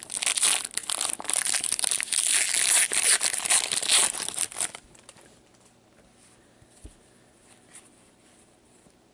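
Wrapper of a 2016-17 Upper Deck MVP hockey card pack being torn open and handled, a dense crinkle that stops about four and a half seconds in. After that there are only a couple of faint clicks.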